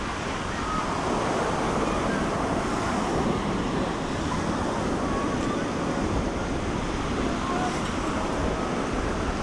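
Ocean surf washing steadily onto a beach, with wind.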